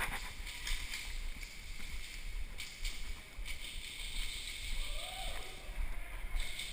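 Muffled rustling and handling noise on a head-mounted GoPro camera as the player moves, with a few faint sharp clicks.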